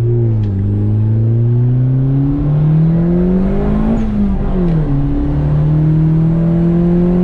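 Turbocharged Honda D16 single-cam four-cylinder in an EF Civic wagon accelerating. Its pitch climbs steadily, drops at a gear change about four seconds in, then climbs again in the next gear.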